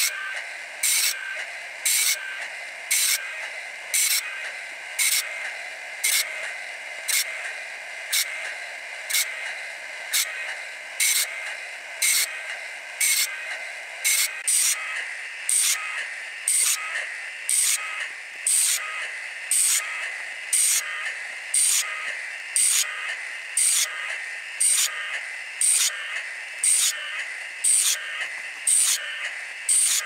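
Woodland Mills sawmill blade sharpener grinding a bandsaw blade unattended: the motor whines steadily while the grinding wheel strikes each tooth in turn, a sharp gritty grind about once a second as the advancer indexes the blade around.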